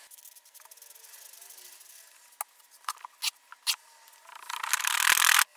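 Sand-mold making: a few sharp knocks against the wooden flask, then a loud gritty rush of oil-bonded molding sand being filled and packed into the flask over the pattern, cutting off suddenly near the end.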